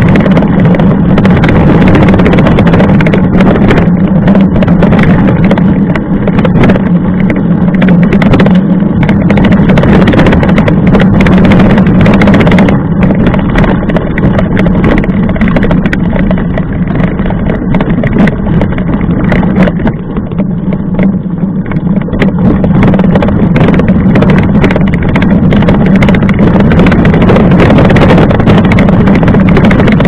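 Mountain bike rolling fast over a gravel dirt road, heard through a camera mounted on the bike next to the front wheel: a loud, steady rumble with constant rattling and clicking from the bumps.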